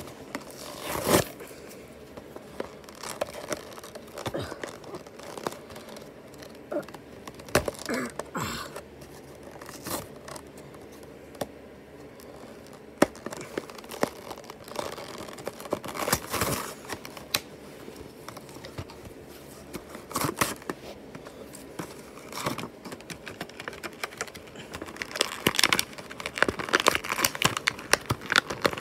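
Toy-car blister pack being opened by hand: cardboard backing tearing and the clear plastic bubble crinkling, in irregular rips and crackles. A loud rip comes about a second in, and a dense run of crinkling comes near the end.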